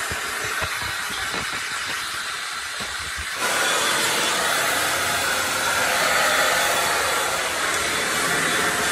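Handheld hair dryer blowing steadily during a blow-dry. About three and a half seconds in, it suddenly gets louder and fuller.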